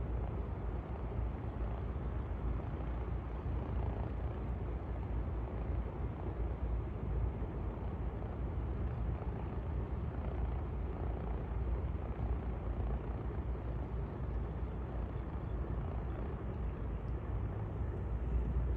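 Twin-engine amphibian plane taxiing on the water, its engines giving a steady low drone.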